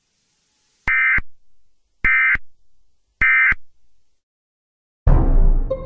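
Emergency Alert System end-of-message tones: three short buzzy data bursts, about a second apart. Near the end a loud, noisy burst of sound begins.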